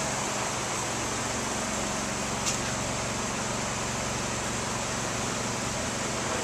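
Steady city street background noise: a low hum under an even hiss, with one short click about two and a half seconds in.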